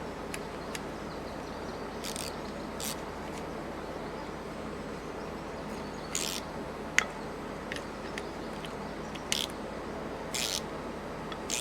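Short, intermittent scrapes and rubs with one sharp click, over a steady hiss, as a stubborn stuck part on the truck's front end is worked at to free it.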